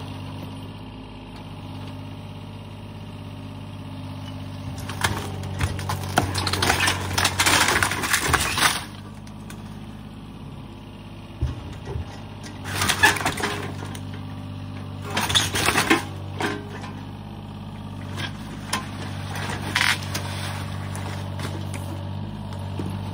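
Yanmar mini excavator's diesel engine running steadily while its bucket tears into a wood-framed garage: timber cracking and boards and shingles crashing down, in one long stretch in the first half and then three shorter ones.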